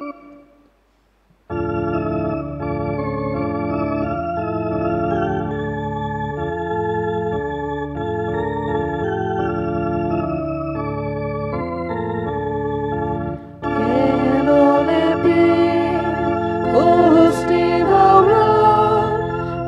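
Organ playing the introduction to a church hymn for the offertory in sustained chords, with singing joining in about two-thirds of the way through.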